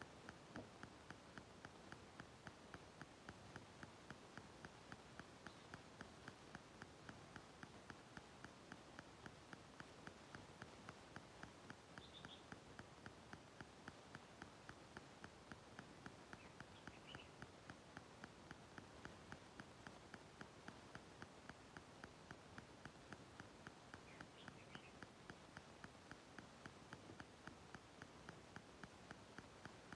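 Near silence: a faint, even ticking about three times a second, with a few brief faint high chirps.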